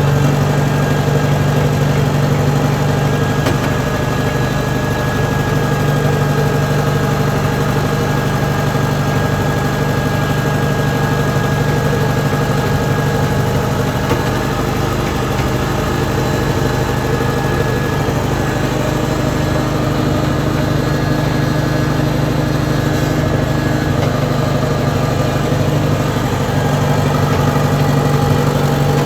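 Compact track loader's engine running steadily with a thin high whine, easing a little for a stretch and building again near the end.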